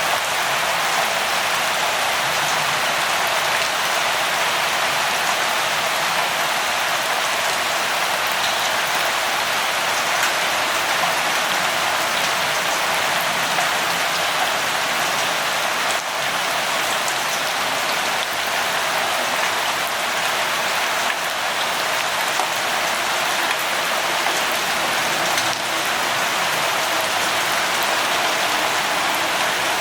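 Steady light rain falling, an even hiss that holds level without letup.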